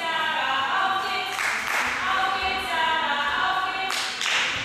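Several women's voices calling out from the mat side in long, drawn-out shouts that overlap and shift in pitch, like a chant. Two short noisy bursts cut through, about a second and a half in and near the end.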